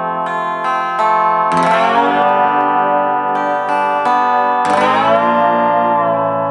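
Handmade lap steel slide guitar playing ringing chords. The strongest chords are struck about one and a half seconds in and again near five seconds, with lighter plucks between them, and the pitch bends slightly as the steel slides along the strings.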